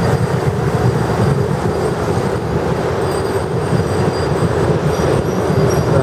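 Steady, loud rumble of road traffic going by.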